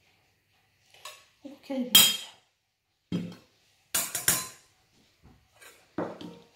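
Kitchen utensils and dishes clinking and knocking: a handful of separate sharp knocks, the loudest about two seconds in, with a quick cluster of clinks about four seconds in.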